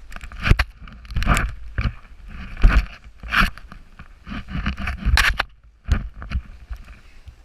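Snowboard scraping over snow in irregular bursts, each with a low rumble, as heard from a camera mounted on the rider.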